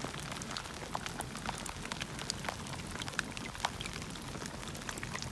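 Rain falling into puddles of standing water and onto wet mud: a steady hiss scattered with many small, separate drop ticks.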